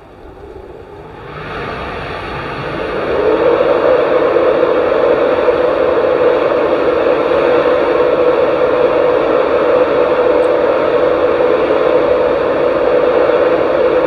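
Class 91 electric locomotive powering up to depart: a drone that swells over the first three seconds, then holds loud and even with a steady hum.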